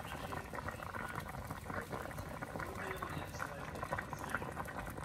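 A big stainless steel stockpot of chicken foot soup boiling: a steady, dense bubbling and popping of the broth.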